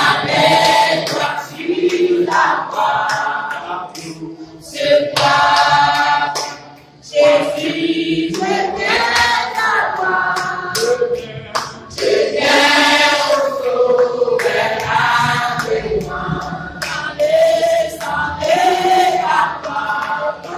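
A small mixed group of men and women singing a hymn together from hymnbooks, voices only with no instruments, pausing briefly between lines.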